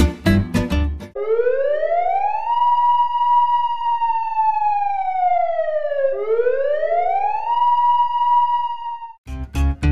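Acoustic guitar music breaks off about a second in and a siren wail takes over: it rises to a high pitch, holds, slowly sinks, then rises and holds again. The strummed guitar music comes back just before the end.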